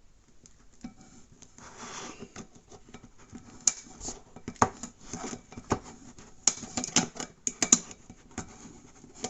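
Can opener of a Leatherman Rev multi-tool levering and cutting around the lid of a tin can: irregular sharp metallic clicks and crunches with some scraping, coming more thickly from about six to eight seconds in.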